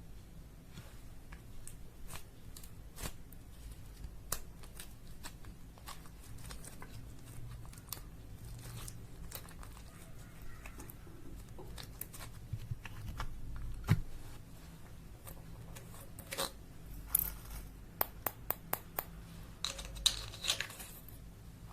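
Hands kneading and stretching slime, giving sticky clicks and crackles, with a run of louder, quicker pops from about three-quarters of the way through. A faint low hum runs underneath.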